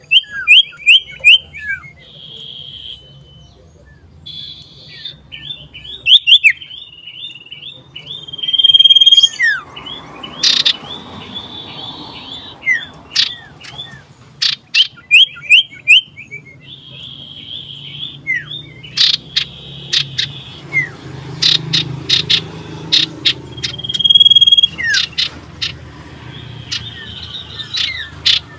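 Common iora (cipoh) singing shrilly, with runs of short repeated chirps and fast trills alternating with sharp ticking notes, in an excited, challenging song directed at a rival bird.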